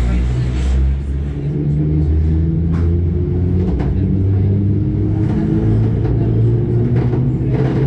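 SKM Tricity electric multiple unit pulling away from a station and gathering speed, heard from inside the carriage: the traction motors hum with tones that climb in pitch in steps, over a steady low rumble, with a few faint clicks.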